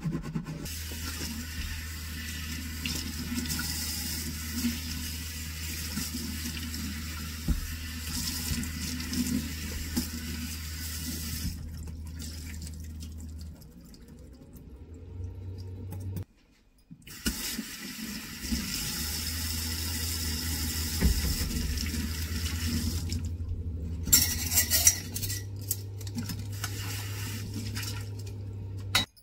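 Water running from a kitchen tap into a stainless steel sink while a woven basket is scrubbed with a sponge and rinsed under the stream, over a steady low hum. The water cuts out briefly about halfway through, and a few knocks come near the end.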